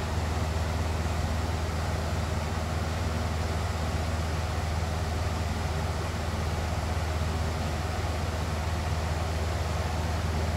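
Box fan running steadily, an even airy whoosh over a low, constant motor hum.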